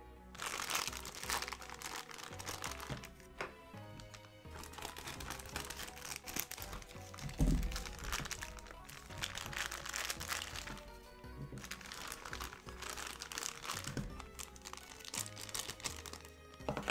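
Thin clear plastic bag crinkling and crackling as hands tear it open and work a small figure box out of it, over background music. A dull thump about seven seconds in.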